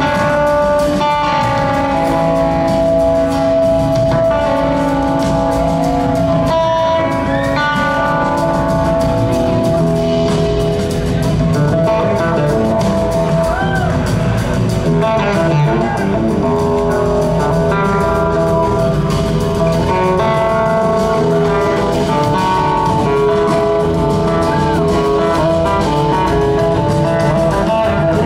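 Live rock band with an electric slide guitar solo on top: long sustained notes, with the slide gliding between pitches now and then, over bass and drum kit.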